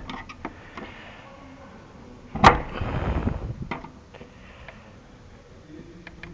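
Screwdriver working the locking ring of a car's fuel tank sender unit loose: a few light clicks, then a sharp knock about two and a half seconds in followed by about a second of scraping and rattling, then more scattered clicks.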